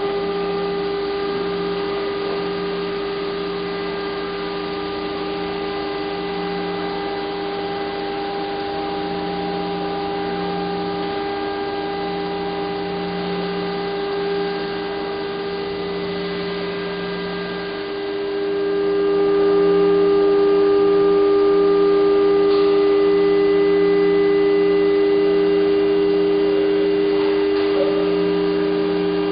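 Steady electrical machine hum of automated assembly-line equipment, several held tones with a lower hum pulsing on and off every second or two. It grows louder and shifts in tone partway through.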